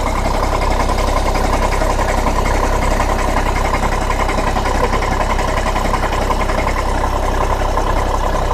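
Skoda Octavia TDI diesel engine idling cold, running steadily with a knock from a failed dual-mass flywheel.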